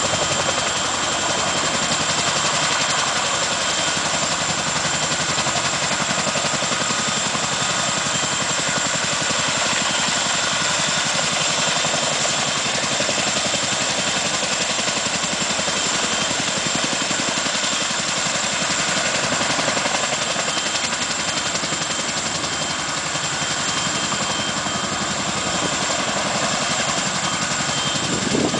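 CH-47 Chinook helicopter holding a low hover, its tandem rotors and twin turboshaft engines running steadily. A fast, even rotor chop is heard, with a steady high turbine whine over it.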